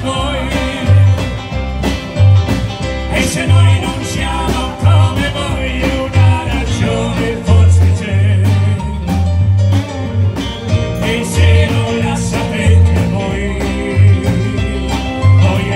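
Live band playing with electric guitar, electric keyboard and drum kit, over a strong low bass line and steady drum beat, with a man singing into a microphone.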